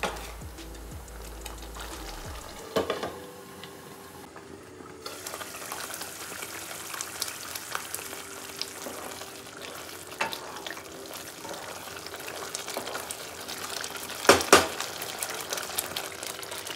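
Food frying in a pan, sizzling while it is stirred, with a utensil scraping and knocking against the pan and two loud knocks near the end. The sizzling grows louder about five seconds in. Faint background music runs underneath.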